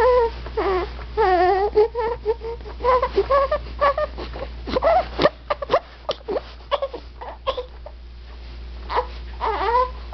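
Dog whining and yowling in a run of short, wavering, up-and-down calls, like an attempt at talking.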